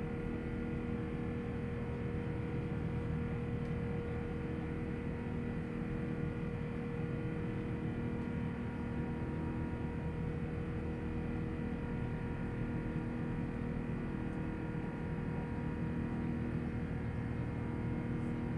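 Airbus A380 climbing after take-off: steady engine and airflow noise, a constant low rumble with a few steady hum tones over it.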